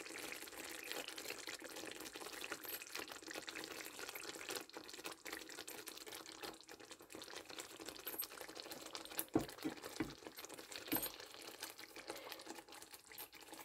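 Thick curry gravy bubbling and spitting faintly in a pan just off the heat, with a few knocks of a spatula against the pan a little past halfway.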